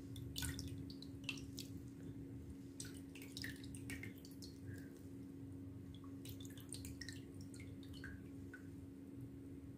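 Faint, irregular drips and small wet ticks of water falling from a piece of soaked, softened raw clay pot held over a tub of water.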